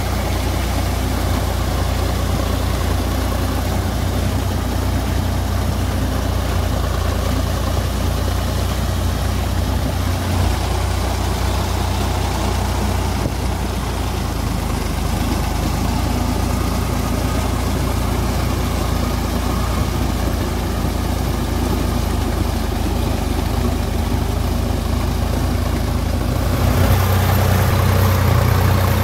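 Sonalika Sikandar DI 47 RX tractor's diesel engine running steadily while it pulls a rotavator through wet paddy mud. About 27 seconds in the engine sound gets louder and closer, heard from the driver's seat, with a thin high whine added.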